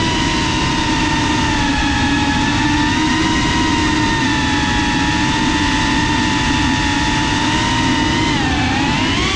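FPV quadcopter's electric motors and propellers whining steadily, heard through the GoPro mounted on it; the pitch dips and then rises sharply near the end as the throttle changes.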